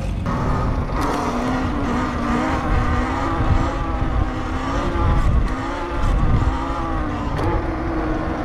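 Electric dirt bike's motor whining while riding on pavement, the pitch rising and falling with the throttle, over a low rumble of wind on the microphone.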